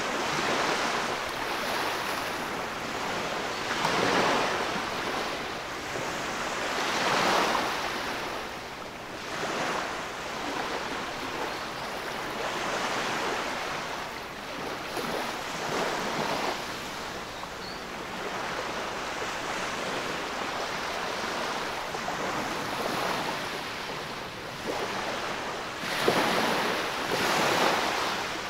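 Small waves breaking and washing up over sand at the water's edge, the surf swelling and fading in a new surge every few seconds.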